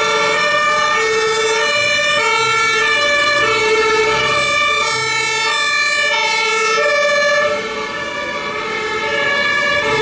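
Two-tone sirens of German fire-brigade emergency vehicles on call, alternating steadily between a high and a low note, with more than one siren sounding out of step at once. They grow slightly quieter near the end.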